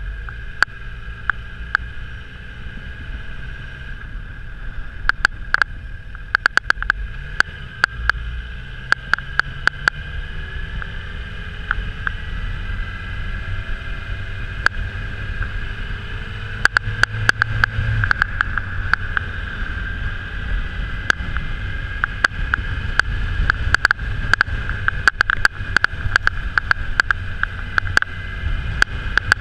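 Yamaha FZ6R's inline-four engine running while riding, muffled and mixed with a low wind rush, its pitch rising and falling with the throttle. Frequent sharp clicks sound throughout, thickest in the second half.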